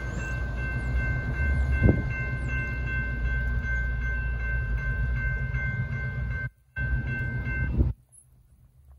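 Railroad crossing bell ringing steadily over a low rumble, then stopping near the end as the gates start to lift once the train has cleared. The sound cuts out briefly twice.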